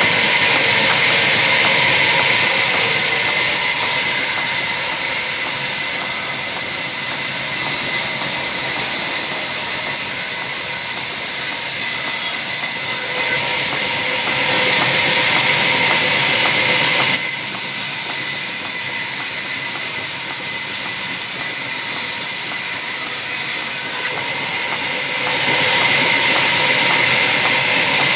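Large log band saw running, a steady whine on several tones over a loud hiss. The sound gets louder for a few seconds at a time, about halfway through and again near the end, as the blade works through the log.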